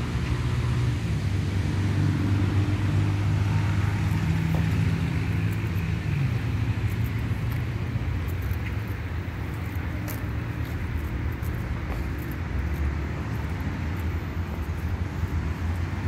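Road traffic: car engines running, a steady low hum with a noisy wash of passing vehicles.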